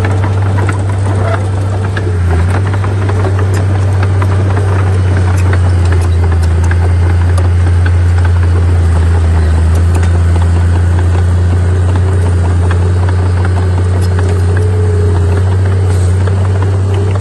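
Heavy earthmoving machine's diesel engine running steadily with a deep, even drone, overlaid with frequent metallic rattling and clanking.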